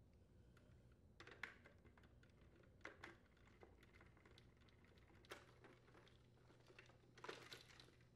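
Faint, scattered clicks and taps of a nut driver on the screws and plastic as the screws holding the ice maker to its plastic air baffle are taken out, with the plastic parts knocking as the ice maker is handled near the end.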